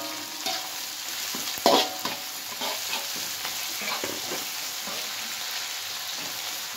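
Chilies, tomatoes, shallots and garlic sizzling in hot oil in a metal wok while a metal spatula stir-fries them, scraping and knocking against the pan. The loudest scrape comes a little under two seconds in.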